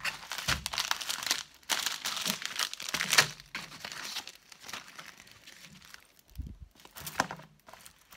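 The paper cover sheet and transparent protective film of a rolled diamond-painting canvas crinkling and rustling as it is unrolled and the cover sheet is smoothed and lifted off. The rustling is busiest in the first three seconds or so, then a few softer rustles follow.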